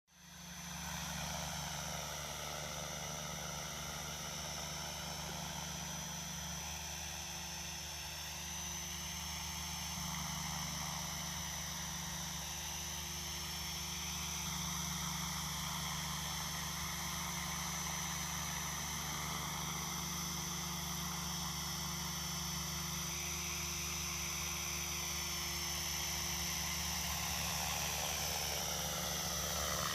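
Align T-Rex 500 electric radio-controlled helicopter hovering inverted. Its rotor blades buzz steadily under a high, constant whine, and the pitch wavers slightly as it holds its hover.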